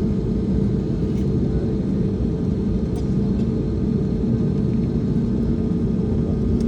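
Steady low rumble with a constant hum inside an airliner's cabin as it taxis after landing, engines at idle.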